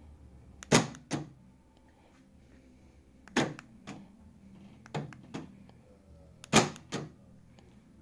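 Aftermarket electric door lock actuator driving the lock rod on a C3 Corvette door latch, cycling four times under remote control. Each cycle is a sharp double clunk, about two to three seconds apart.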